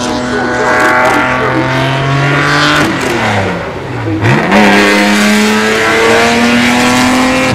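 Race car engine running loud at speed; about three seconds in its pitch falls away sharply for a second, then climbs steadily again as it accelerates.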